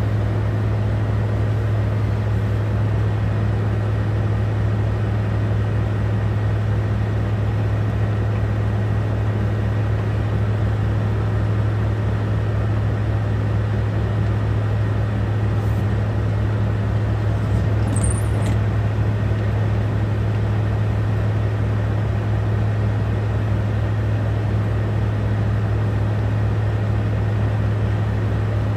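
Semi-truck's diesel engine idling with a steady low drone, heard from inside the cab. A brief high chirp cuts in about two-thirds of the way through.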